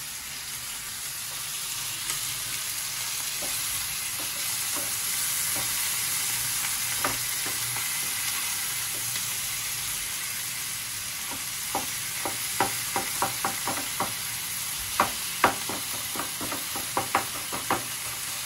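Sliced onions and tomatoes sizzling as they fry in a non-stick pan on a gas burner, with a steady hiss. A slotted wooden spatula stirs them, its knocks and taps against the pan coming thick and fast in the second half.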